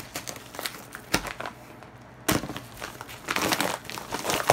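Yellow padded bubble mailer being slit open with a knife and pulled apart: scattered crinkling and rustling of the paper and plastic, a sudden loud crackle a little over two seconds in, then dense crinkling near the end as the envelope is opened up.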